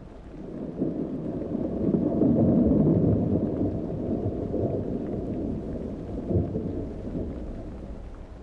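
Rolling thunder, a deep rumble that swells about two seconds in and then slowly dies away.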